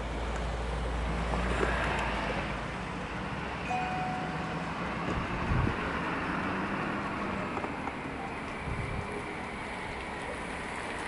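Steady vehicle and traffic noise in a parking lot, with a low engine rumble for about the first two seconds.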